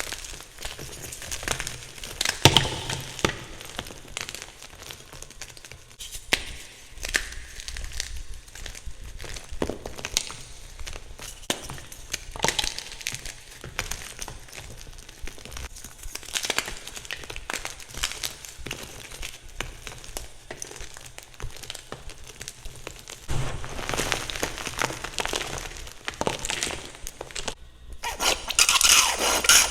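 Blocks of gym chalk being crushed, with repeated sharp cracks and crunches of the crumbling chalk and a denser run of crumbling near the end.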